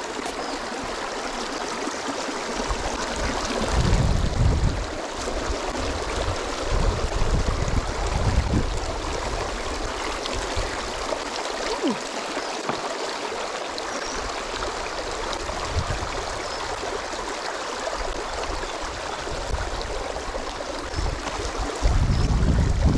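Shallow river running and gurgling over stones, a steady rush of water. Wind buffets the microphone now and then, most strongly about four seconds in, around eight seconds in, and near the end.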